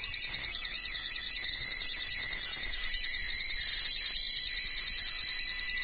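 Running high-voltage coil rig powered through an inverter: a steady high-pitched electrical whine over a constant hiss and buzz.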